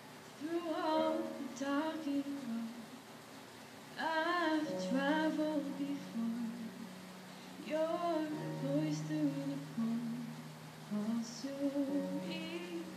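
A woman singing slow phrases, each with a wavering held note, while she accompanies herself on a grand piano whose low notes sound underneath.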